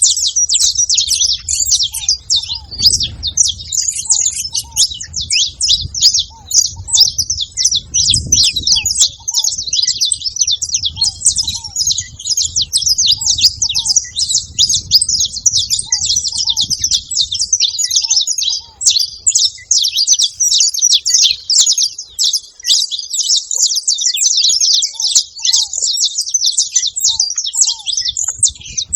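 Saffron finch singing a fast, continuous stream of high chirps and trills, with a faint low note repeating about once a second from ground doves.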